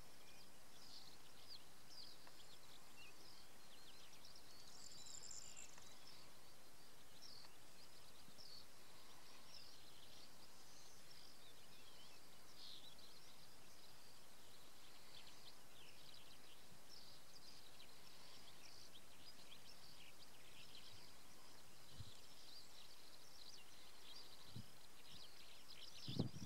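Small birds chirping and singing faintly and continuously over a steady background hiss, with a brief low thump near the end.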